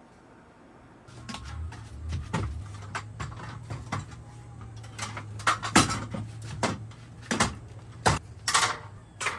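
Food and containers being handled and put into a refrigerator: a string of clicks and knocks with some rustling of packaging, over a steady low hum that starts about a second in.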